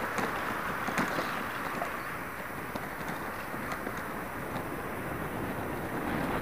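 Brompton folding bike rolling over a rough gravel track: steady tyre crunch with scattered rattles and knocks from the bike jolting over bumps, a sharper knock about a second in.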